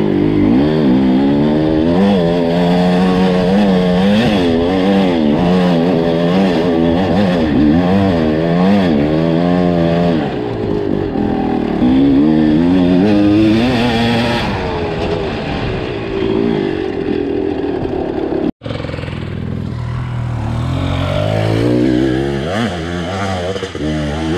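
Two-stroke enduro dirt bike engine being ridden hard, revving up and down over and over as the throttle is worked. About three quarters through the sound cuts out abruptly, and after it the engine runs lower and steadier.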